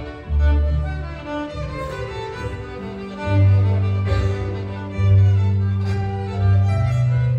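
Violin played live, a bowed melody over long, low accompaniment notes that change every second or two.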